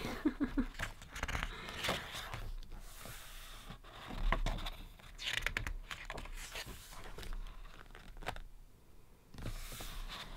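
Pages of a thick photobook being turned by hand: several papery swishes and rustles.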